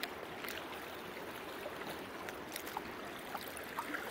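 River water running over shallows: a steady rush with scattered faint ticks.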